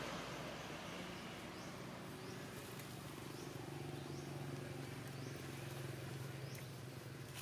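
Outdoor ambience: a short high chirp repeated roughly once a second, over a low steady hum and hiss.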